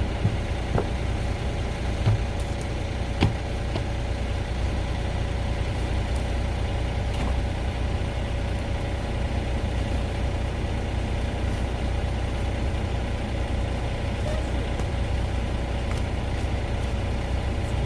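An engine idling steadily with a low rumble, with a few short knocks in the first few seconds.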